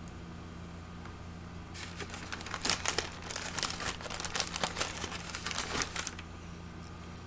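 Crinkling, rustling handling noise right at the microphone as an arm in a sweater sleeve brushes across the device: a dense crackle that starts about two seconds in and stops about a second before the end.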